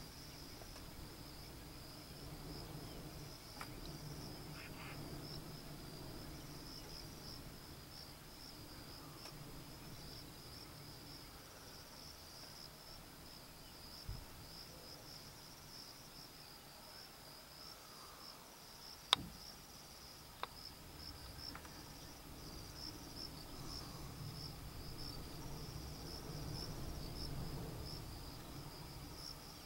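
Insects chirring steadily in a continuous high-pitched trill. A single sharp click stands out a little past the middle, with a fainter one soon after.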